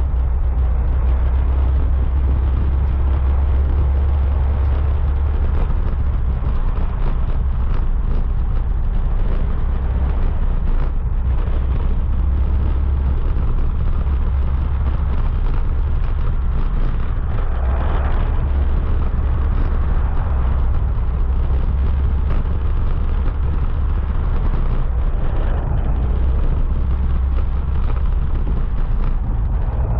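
Wind rushing over the camera microphone of a moving motorcycle, a heavy low rumble, with road and engine noise underneath. The pitch rises and falls briefly a little past halfway through.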